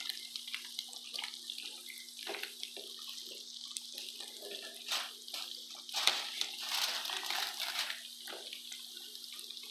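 Breaded food deep-frying in a pot of hot oil: a steady sizzle full of small crackles and pops, swelling louder for a couple of seconds about six seconds in.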